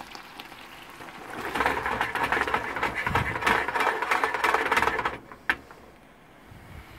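A frying pan of tortellini in tomato sauce is shaken back and forth on a portable gas stove, rattling on the pan support while the sauce sizzles. This lasts for about three and a half seconds from about a second and a half in and ends with a single knock; a quieter sizzle goes on around it.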